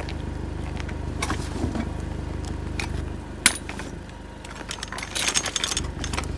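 Steady low hum of a car engine idling. About three and a half seconds in there is a sharp knock, and near the end a clatter of clicks and rattles as the metal frame of a Coleman folding camp wagon is pulled open.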